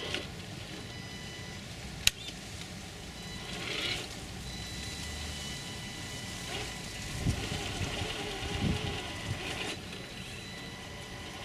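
HB Toys R1013 RC rock crawler's electric drivetrain whining as it creeps up a concrete block step, rising in short spells. There is a sharp click about two seconds in and a couple of dull knocks in the second half as it works against the blocks.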